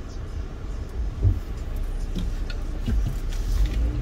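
Low rumble of a car heard from inside the cabin as it idles and creeps forward, with a thump about a second in.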